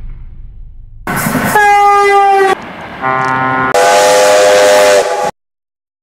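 Steam locomotive whistle sounding in several blasts over a hiss of steam: a first blast on one note, then a lower blast running into a longer, chord-like blast. The sound cuts off abruptly a little after five seconds in.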